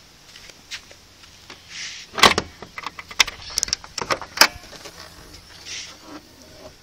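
Car hood being opened by hand on a 2000 Volkswagen Jetta: a loud clunk about two seconds in as the safety catch is worked and the hood lifted, then a string of sharp metallic clicks and knocks from the latch and hood.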